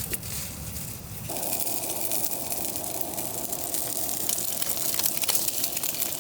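Breakfast food sizzling in a pan on a camp stove, a steady hiss full of small crackles that changes in tone about a second in.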